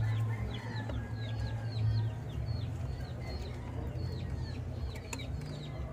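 Birds calling in the background: a steady run of short, high chirps or peeps, two or three a second, over a low steady hum, with a couple of faint clicks.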